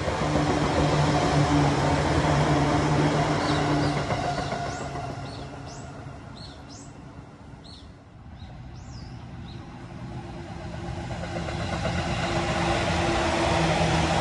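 Electric commuter train running past on the track, a steady low motor hum that is loudest in the first few seconds and fades away. Small birds chirp in the lull around the middle, and a train's hum builds again over the last few seconds.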